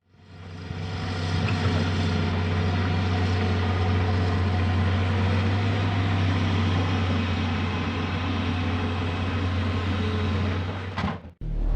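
Heavy diesel engine of construction machinery running steadily with a deep hum, fading in at the start and cutting off abruptly near the end.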